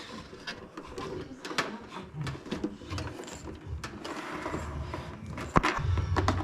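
Scattered clicks and knocks of hands working cable into a cable gland on an electrical cabinet, with one sharper knock about five and a half seconds in.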